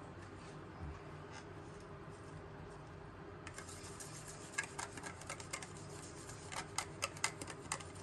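Light irregular clicks and taps of small paint bottles and painting tools being handled while airbrush paint is mixed, clustered in the second half, over a faint steady hum.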